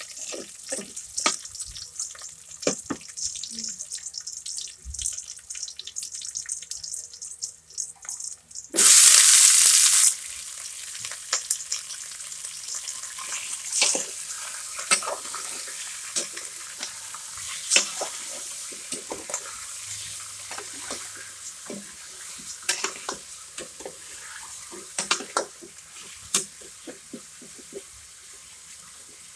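Chicken afritada sizzling in a pan while a utensil stirs it, clicking and scraping against the pan many times. About nine seconds in, a loud rushing hiss lasts about a second and a half.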